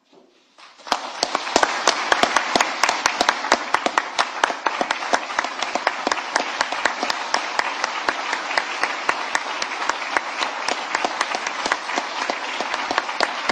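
Audience applause: many hands clapping, starting about a second in and then going on steadily, with a dense patter of sharp individual claps.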